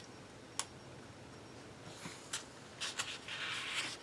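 Paper handling as a coloring-book page is turned: a few light taps and clicks, then a short rustling slide of paper near the end.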